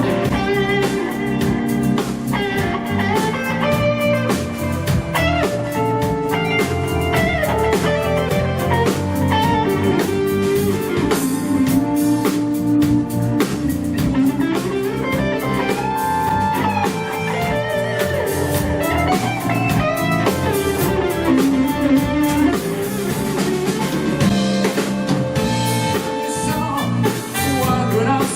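Live rock band playing an instrumental passage, with a guitar carrying the lead over a drum kit.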